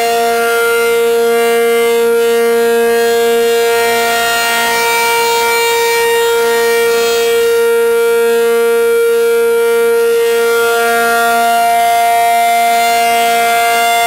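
Federal Signal 500-DH-TT rotating dual-horn outdoor warning siren sounding a loud, steady two-note tone, its pitch holding level. The tone swells and fades as the horns turn on the pole.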